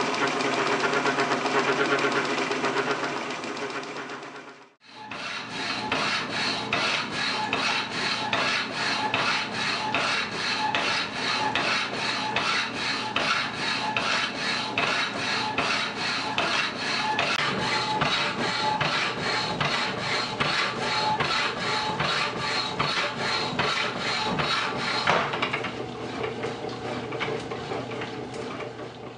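A metal lathe runs steadily for the first few seconds. Then, about five seconds in, a motor-driven power hacksaw saws through the steel drawbar rod with even, repeated back-and-forth strokes, growing quieter for the last few seconds.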